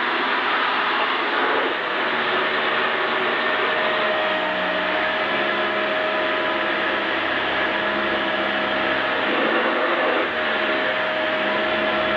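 Vacuum cleaner running steadily, a constant whine over its motor and airflow noise.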